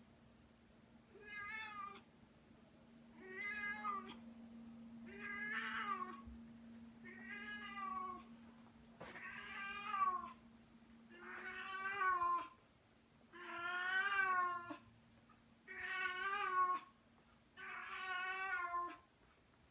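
Domestic cat with a toy in her mouth, giving a string of muffled, wavering yowls: nine drawn-out calls of about a second each, roughly every two seconds. It is the strange call she makes whenever she grabs this toy, which her owners take for a hunting cat announcing her catch as a trophy.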